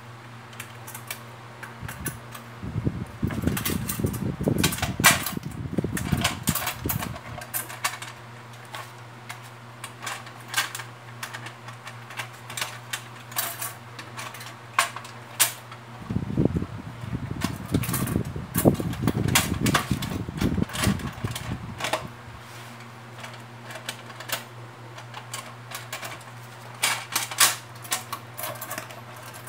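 Clicks and taps of a mechanical bathroom scale's sheet-metal housing and parts being handled and fitted together, with two stretches of heavier rubbing and knocking, a few seconds in and around the middle. A steady low fan hum runs underneath.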